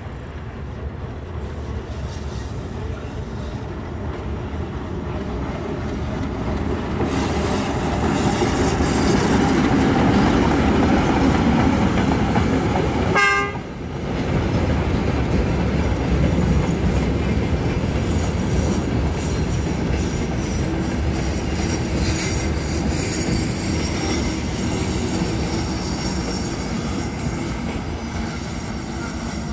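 A ChME3 shunting diesel locomotive's six-cylinder diesel engine running as the locomotive passes, growing louder to a peak about a third of the way in. Its train of open freight wagons then rolls by with steady wheel clatter over the rail joints. A short toot sounds about halfway through.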